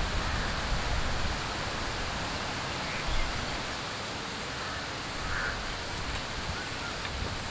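Steady outdoor background noise: an even hiss with a low rumble underneath, and a couple of faint short chirps a few seconds in.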